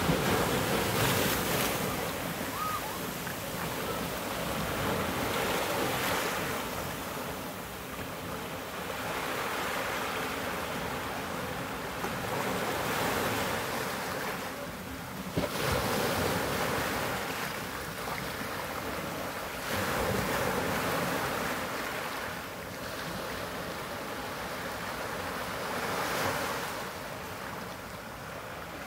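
Small ocean waves breaking and washing in over black volcanic rocks and sand, the surf swelling and easing every few seconds.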